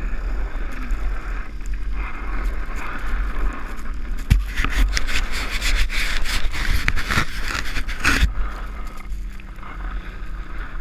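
Trash can lid scraping and sliding over snow while towed, with wind rumbling on the microphone. From about four to eight seconds in, a stretch of louder scraping with knocks and jolts as the lid bumps along.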